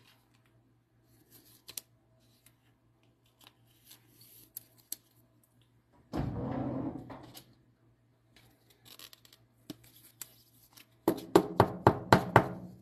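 A trading card being handled in plastic: a soft-plastic penny sleeve crinkles faintly as the relic card is worked out of it and into a rigid clear holder. About six seconds in there is a louder rustling scrape of over a second. Near the end comes a quick run of about eight sharp taps.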